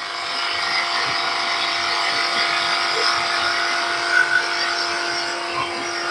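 Charnwood DS16/32 drum sander running, a steady motor hum with a held tone and a mid-to-high hiss.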